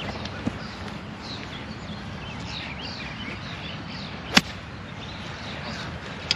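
A single sharp crack of a golf club striking the ball about four seconds in, over steady outdoor background noise with small birds chirping.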